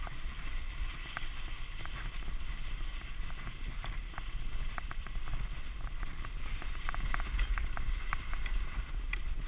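Dog sled gliding over packed snow: a steady low rumble of the runners on the trail, with wind on the microphone and scattered light clicks.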